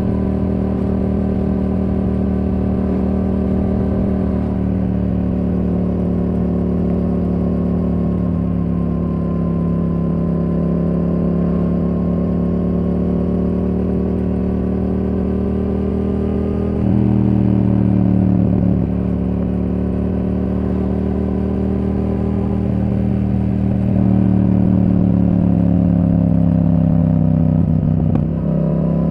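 Yamaha R7's parallel-twin engine through a Yoshimura R77 exhaust, running steadily under way with the note drifting slowly up and down. About seventeen seconds in the exhaust gets louder with a change in note, and again around twenty-four seconds. There is a brief dip in level near the end.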